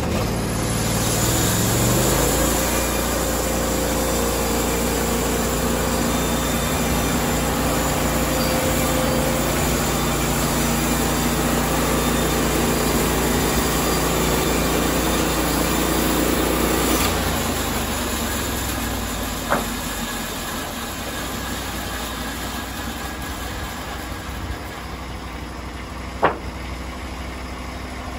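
Engine of a Norwood LumberPro HD36 portable bandsaw mill throttling up in the first two seconds and running steadily at full speed while the band blade cuts through a log. About 17 seconds in the engine drops back to idle, and two sharp knocks come later.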